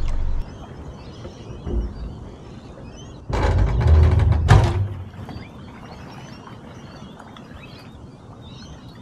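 Boat's outboard motor running, then stopping abruptly about half a second in. After it, quieter waterside background with faint bird chirps, and a loud burst of rumbling noise lasting about a second and a half in the middle.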